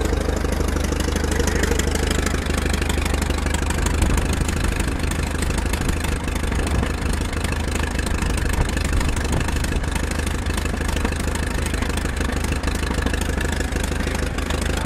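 David Brown VIG1 aircraft tug's engine idling steadily.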